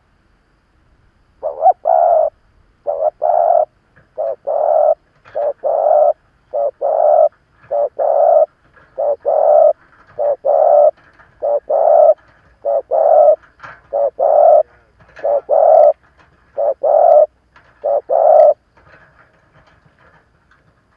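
Spotted dove cooing, a series of about fourteen short, low coo phrases evenly repeated a little over once a second, stopping a few seconds before the end. It is the call of a decoy male, used to provoke and lure wild doves.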